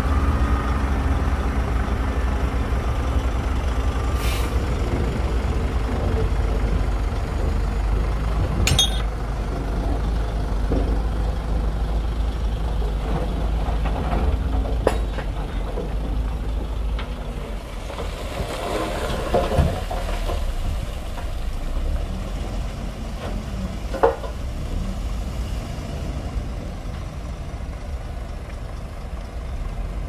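Heavy diesel earthmoving machinery working: a deep, steady engine rumble, broken by a few sharp knocks.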